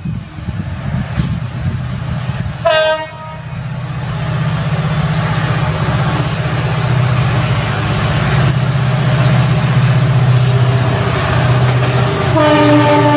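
WDG4 diesel-electric locomotive's EMD two-stroke engine running under load as it hauls a freight train past, growing louder as it nears. Its horn gives a short blast about three seconds in and a longer one near the end.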